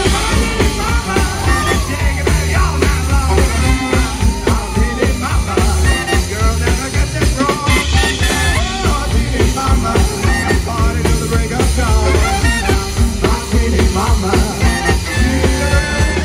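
Live swing band music: the full band playing a number with strong bass.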